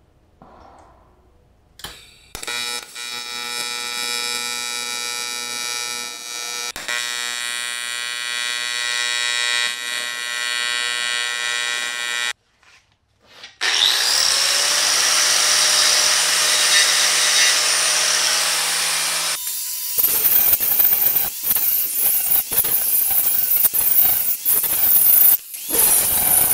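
Work on a cast aluminium oil pan: an AC TIG welding arc buzzing steadily for about ten seconds while the crack is filled. After a short break, a power tool spins up and runs steadily. Near the end comes a harsher, crackling stretch.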